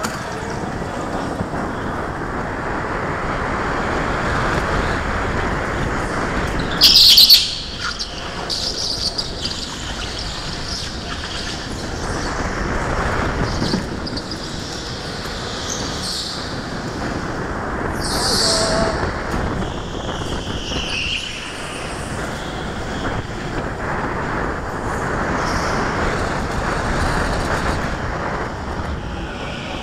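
Go-kart running flat out, heard from on board as a steady rushing drive and tyre noise that swells and fades through the corners. A loud sharp noise comes about seven seconds in, and brief high squeals follow later.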